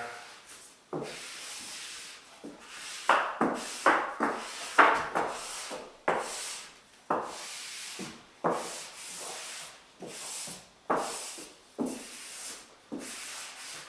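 Repeated rubbing strokes across a self-adhesive printed backdrop as it is pressed and smoothed down onto a hardboard backboard. About a dozen strokes, each starting sharply and fading away, the loudest a few seconds in.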